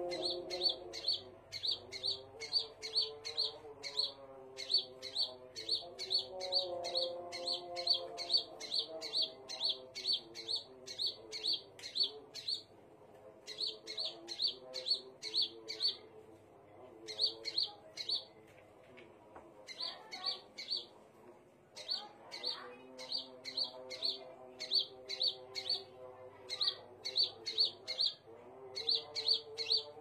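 Caged scarlet minivet (sepah raja) calling: short, high chirps repeated in quick runs of about three a second, broken by a few brief pauses.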